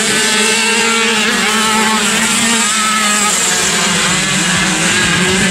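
Several classic 50cc two-stroke racing motorcycle engines running hard on a grass track, their notes overlapping at different pitches and rising and falling as the riders pass and work the throttle.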